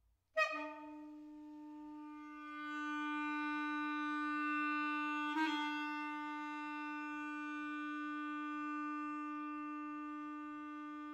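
Solo clarinet playing one long held note, attacked sharply about half a second in, swelling, briefly re-accented midway and then slowly fading.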